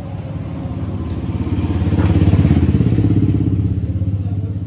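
Deep, fast-pulsing bass from a DJ speaker setup (Tiger Jali Plazma tops and bass cabinets driven by an Audiotone MT1602 amplifier) during a sound check. It swells louder to a peak about halfway through, then eases off.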